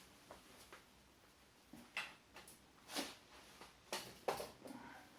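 Faint, scattered clicks and knocks, about half a dozen at irregular intervals, as parts and tools are handled while taking the covers off a motorcycle.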